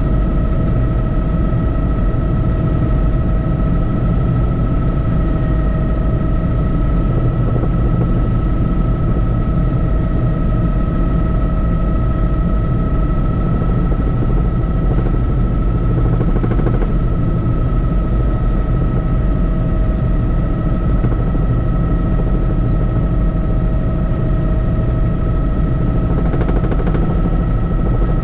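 Helicopter in flight: a steady, loud rotor chop with a constant high whine over it.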